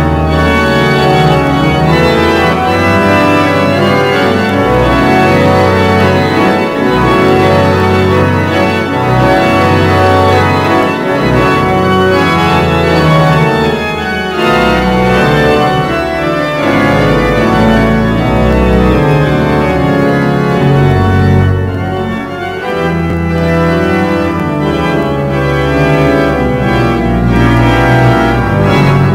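The Eton College Chapel pipe organ playing loud, full sustained chords over deep pedal bass notes, with a brief lighter moment about three quarters of the way through.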